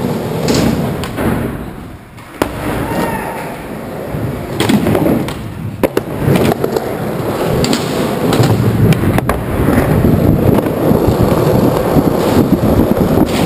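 Skateboard wheels rolling over concrete and ramp surfaces, a steady rough rumble, broken by several sharp clacks of boards hitting the ground, the loudest about six seconds in.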